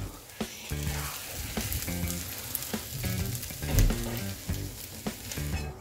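Fried rice sizzling in a hot nonstick frying pan while a plastic spatula scrapes and pushes it out, with short scraping ticks against the pan and plate.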